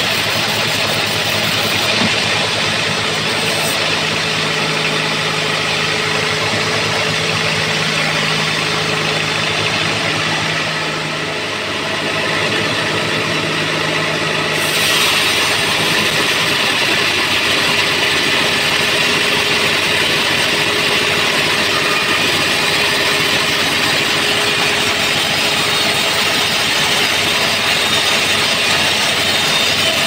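Band sawmill running and cutting lengthwise through an old trembesi (rain tree) log: a steady machine drone with the blade's hiss in the wood. The cutting sound grows brighter about halfway through.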